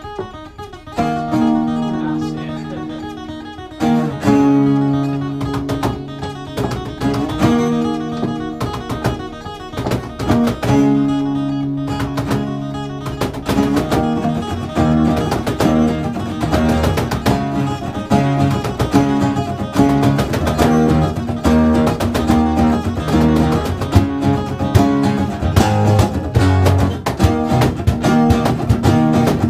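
Acoustic guitars playing live together. Strummed chords are held and change every few seconds at first, then the strumming turns into a busier, rhythmic pattern from about halfway through.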